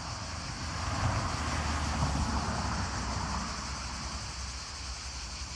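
A motor vehicle passing on a road, its tyre and engine noise swelling about a second in and fading away again, over a low rumble of wind on the microphone.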